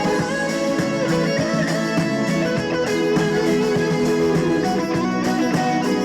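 Instrumental introduction of a Korean trot song, loud and continuous with a steady beat and a melody line over it, played over the stage sound system before the vocals begin.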